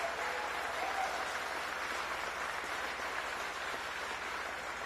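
Audience applauding: steady clapping from a large crowd that eases slightly toward the end.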